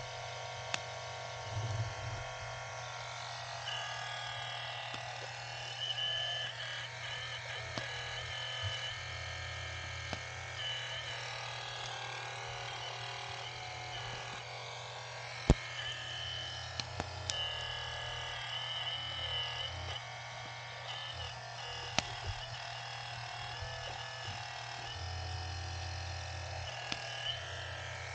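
Hydraulic pump of an RC hydraulic excavator running with a steady whine, its pitch shifting now and then as the machine works. A few sharp clicks, the loudest about halfway through.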